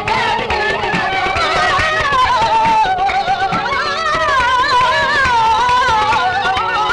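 Qawwali recording: a male voice singing a long, wavering, ornamented line over harmonium and tabla, with frequent drum strokes underneath.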